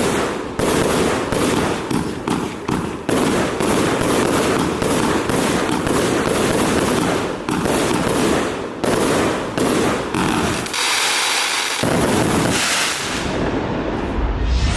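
Pyroworx Gumball firework firing a rapid volley of shots, several a second, over continuous crackling, with a hissy stretch late on. The firing stops near the end.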